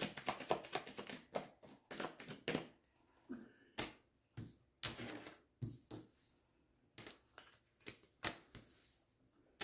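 Tarot cards being drawn from the deck and laid down on a table: a quick run of card clicks and taps over the first couple of seconds, then single taps spaced out as each card is set down.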